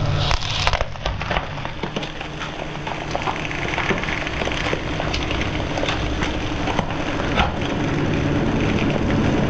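Hydraulic press running with a steady low hum while a stack of books frozen in liquid nitrogen crackles and snaps under the ram, with dense irregular cracking and sharp clicks throughout.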